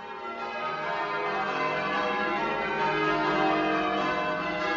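Peal of church bells ringing, many bells overlapping, swelling up over the first second or so.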